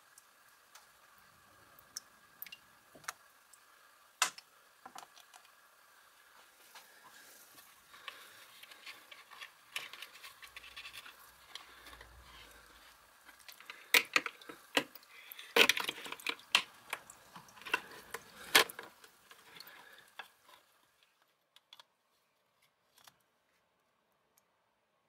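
Liquid varnish sloshing in a plastic bucket, with scattered clicks and knocks as the electric-motor stator and its lead wires are handled in it. The loudest, busiest clatter comes about two-thirds of the way in.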